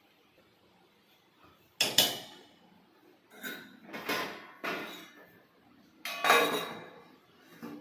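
Cookware being handled: a sharp double knock about two seconds in, then several more clanks and scrapes of pot, lid and utensils, the loudest near the end.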